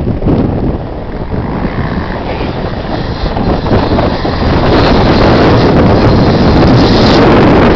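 Wind buffeting the microphone, getting louder about halfway in, over the engines of off-road racing motorcycles on the course.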